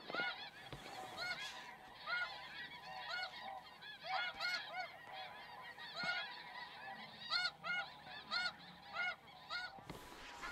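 A flock of snow geese calling: many short, high-pitched honks overlapping several times a second, which stop shortly before the end.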